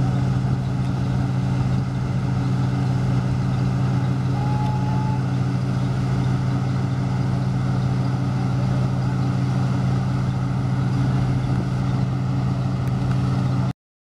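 Kartar 4000 combine harvester running steadily under its Ashok Leyland Hino diesel engine, a constant deep drone while the unloading auger pours grain into a trailer. The sound cuts off suddenly near the end.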